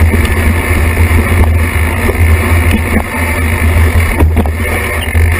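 Mountain-bike ride noise heard through a bike-mounted camera: a loud, steady rumble of the knobby tyre rolling over dirt singletrack and wind on the microphone. A few short knocks and rattles come from bumps in the trail, one about four seconds in.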